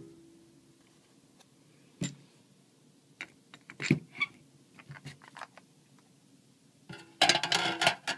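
Scattered clicks and knocks as the assembled Nitinol engine's wheel and metal mount are handled, ending near the end in a loud burst of clattering and scraping.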